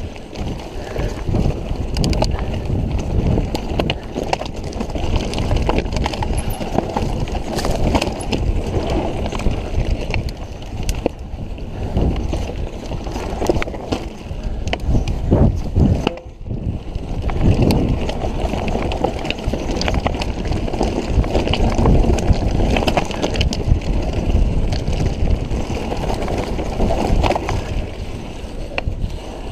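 Mountain bike riding over rocky dirt singletrack: a steady rumble from the tyres and bike, with frequent sharp knocks and rattles as it crosses rocks. It eases briefly about sixteen seconds in.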